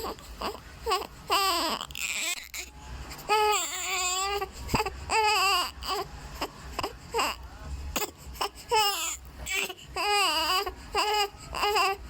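Three-week-old newborn baby crying in a string of short, wavering wails with brief breaths between them.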